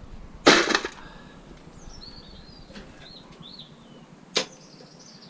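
A short, loud clatter of scrap metal being handled about half a second in, then a single sharp click a few seconds later. A small bird chirps between them.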